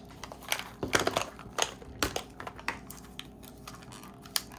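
Irregular sharp clicks and crinkling as a hard plastic Mini Brands capsule wedge is handled and its printed wrapper is peeled off by hand.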